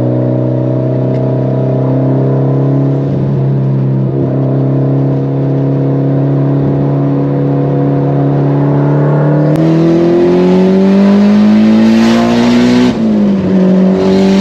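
Mitsubishi Lancer Evolution X's turbocharged four-cylinder with an open wastegate dump and titanium exhaust, heard from inside the cabin: it drones steadily at cruise for about nine seconds, then pulls with the pitch rising, drops at a gear change, and starts climbing again near the end. A loud rushing noise joins in while it pulls.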